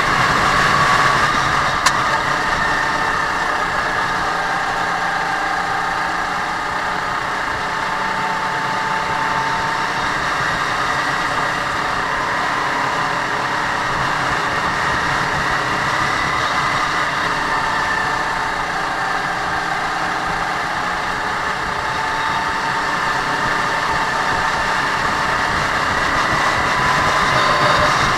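Racing kart engine heard on board at racing speed, its pitch sinking and rising again over several seconds as the driver lifts off and accelerates through corners. There is one sharp click about two seconds in.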